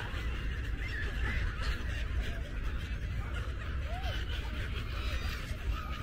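A large flock of gulls calling over one another, many short rising-and-falling cries overlapping without pause, over a steady low rumble.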